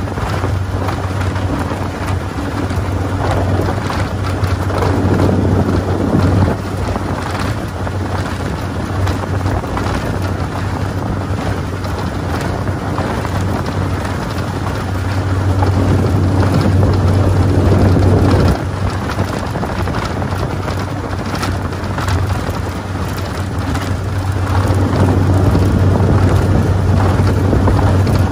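Outboard motor of an aluminium jon boat running steadily at cruising speed, under wind buffeting the microphone and water rushing and slapping against the hull. The noise swells louder a few times.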